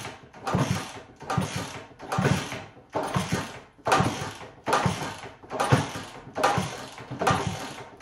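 1964 Honda 50 Super Cub being kick-started over and over, about one kick a second. Each kick turns its small single-cylinder four-stroke engine over, but it does not fire, even on starting fluid; the owner suspects the ignition isn't switched on.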